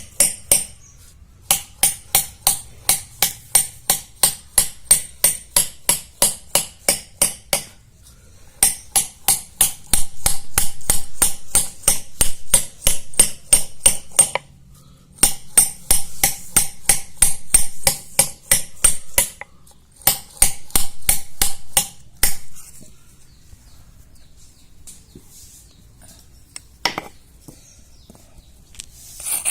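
Hammer and chisel tapping into the face of a stone shil pata grinding slab, pecking small holes to re-dress it: quick runs of sharp, ringing metal-on-stone strikes, several a second, broken by short pauses. The tapping stops for the last several seconds apart from one knock.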